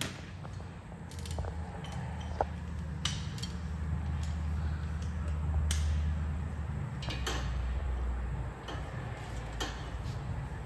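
Low steady rumble, strongest in the middle, with scattered light clicks and knocks of hand tools on metal during exhaust work under a car.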